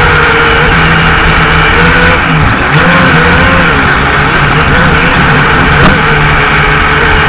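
Holy Stone quadcopter's motors and propellers whining in flight, picked up by its own onboard camera microphone. The pitch wavers up and down with throttle changes and dips about two seconds in, and there is a single sharp click about six seconds in.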